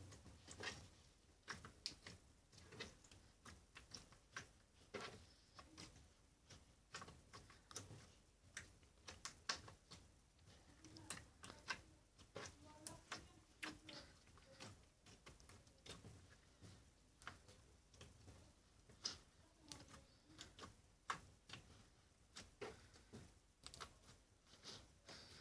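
Slime being pressed and worked by hand, making irregular small clicks and pops, a few a second.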